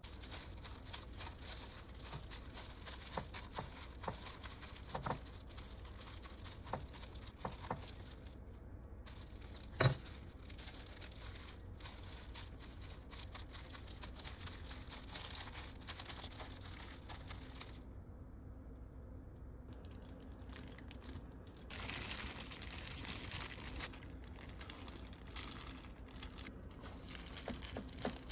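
Disposable plastic gloves crinkling as hands spread wet chili seasoning paste over stacked lettuce and perilla leaves in a glass dish. Soft squishing and small clicks run through it, with one sharper knock about ten seconds in.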